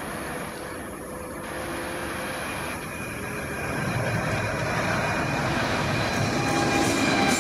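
Train approaching head-on behind diesel locomotives, its rumble growing steadily louder as it nears.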